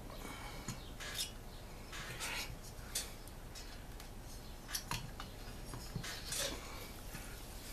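A few sharp metallic clicks and short scrapes from a screwdriver and hands working the piston rings of a Stihl MS 290 chainsaw piston into its cylinder.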